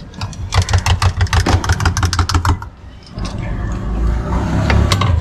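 A fast run of sharp clacks, about ten a second, for about two seconds, then a motor vehicle engine running steadily close by.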